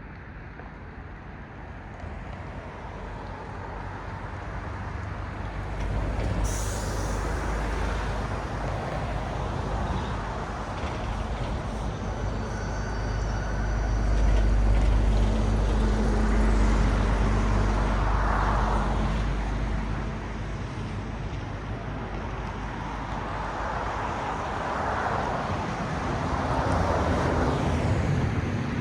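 Road traffic passing: a heavy vehicle's low engine rumble builds and is loudest in the middle, and cars go by one after another near the end with swelling tyre noise. A brief hiss about six and a half seconds in.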